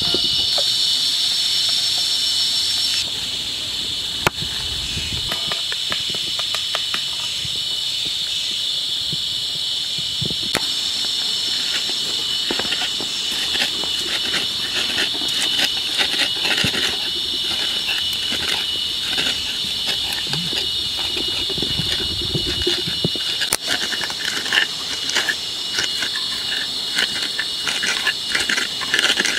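Steady high-pitched drone of forest insects, with a stone pestle grinding and pounding chillies and garlic in a cobek mortar: a quick run of scraping, knocking strokes from about ten seconds in.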